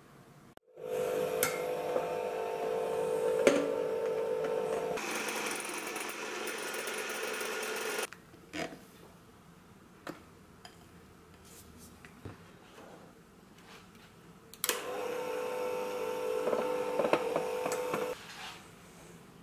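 Electric hand mixer motor running with a steady whine in two runs, one of about seven seconds starting near the beginning and a shorter one of about three seconds near the end, each starting and stopping abruptly. A few faint clicks of utensils on the bowl between the runs.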